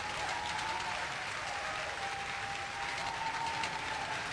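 Crowd cheering and applauding steadily, with several long held cries over the clapping.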